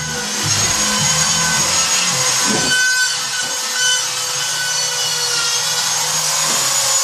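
Gypsum drywall being cut by hand with a hand tool, a rough, ongoing scraping, over a steady background hum.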